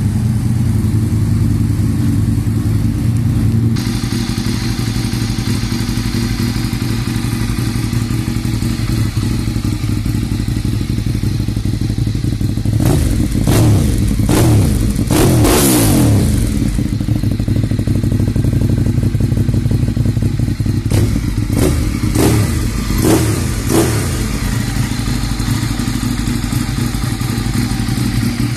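Ducati 848's L-twin engine idling through its underseat exhaust, blipped by the throttle: three quick rising revs about halfway through, then a cluster of shorter blips a few seconds later before it settles back to idle.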